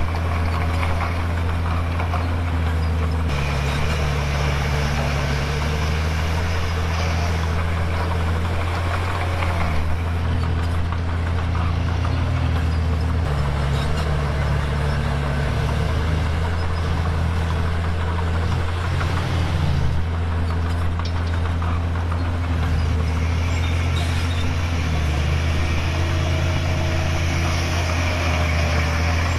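Komatsu D51PX bulldozer's diesel engine running steadily, its pitch stepping up and down several times as the engine speed changes, with a few faint clanks over it.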